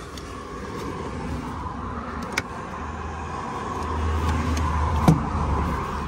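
A road vehicle driving past, its engine and tyre noise building up and fading. There is a light click about two seconds in and a sharper knock about five seconds in.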